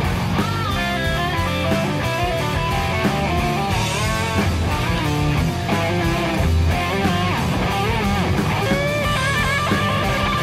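Background rock music led by electric guitar, with bass guitar and a steady beat.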